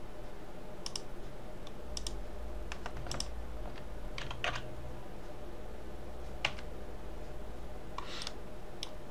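Computer keyboard keys and mouse buttons clicking at irregular intervals, roughly one click a second, as Blender shortcuts are pressed, over a faint steady low hum.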